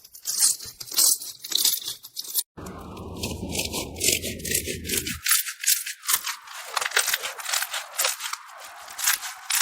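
Slime being squeezed and pressed by hand, making rapid, irregular crackles and pops, with a brief break about two and a half seconds in.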